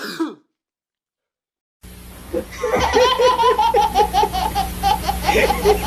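High-pitched, rapid laughter, a quick run of ha-ha-ha pulses about five a second, starting about two and a half seconds in over a steady hum, after a short vocal sound and a stretch of dead silence.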